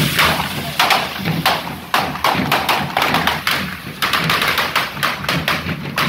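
Correfoc fireworks going off: a rapid, irregular string of sharp firecracker bangs from the devils' spark-throwing carretilles, several a second, over low thuds.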